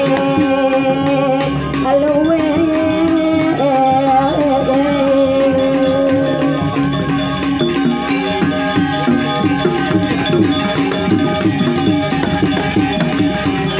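Balinese gamelan music: long held melodic notes over steady percussion in the first half, then busier, quicker-moving notes.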